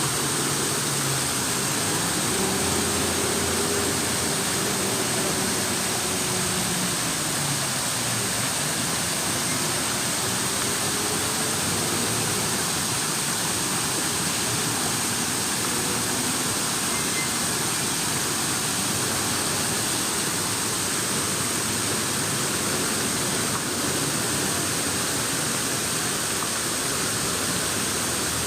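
Steady rush of flowing, falling water, like a fountain or small waterfall. A faint low drone rises and falls in pitch during the first dozen seconds or so.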